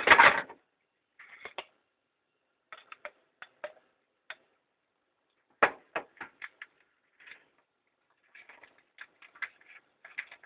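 Handling noise on a tabletop: a loud knock at the start, then scattered light clicks and taps, turning into a quicker run of small ticks near the end as the rubber cement applicator is worked over the card.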